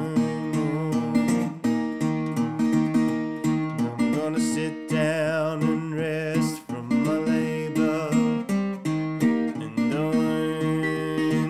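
National tricone resonator guitar fingerpicked in gospel-blues style: steady bass notes under a line of picked treble notes, played as an instrumental break.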